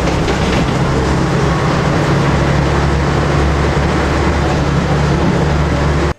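Steady running noise heard from inside the cabin of a moving city bus or tram, a dense rumble with a constant low hum, cutting off abruptly at the end.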